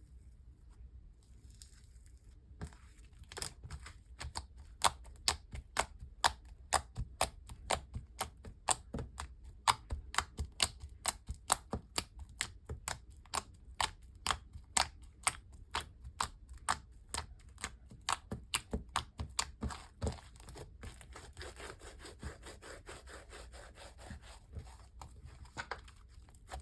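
Spreadable slime with crushed jelly cube pieces being worked, making a long series of sharp sticky clicks, about two to three a second, that ease into softer crackling near the end.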